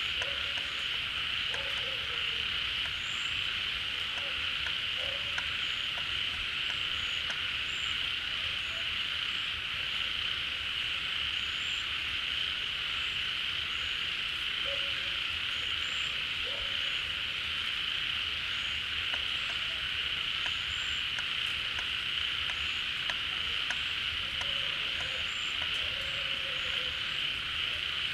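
Chorus of many frogs calling together at a pond: a dense, steady high trilling with short, lower croaks scattered through it.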